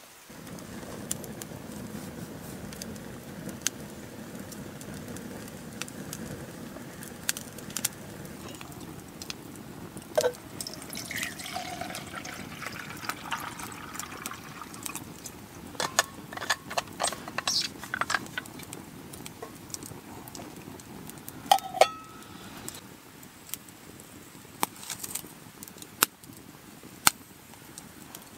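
Water poured from a metal flask into a metal cook pot, splashing and filling for a few seconds about a third of the way in. Scattered crackles and pops from a wood campfire run throughout, with two sharp knocks a little past the middle.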